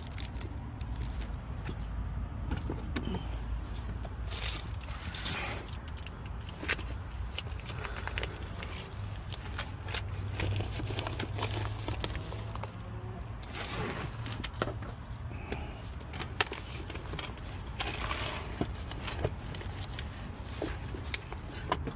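Papers, a cloth manual wallet and plastic bags being shuffled and rustled, with scattered light clicks and knocks of plastic trim, over a steady low hum.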